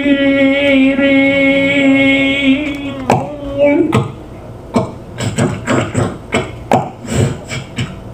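A man's voice making sound effects: a steady hummed tone held for about three seconds, with a short upward slide after it. About four seconds in it gives way to a string of irregular mouth clicks and pops.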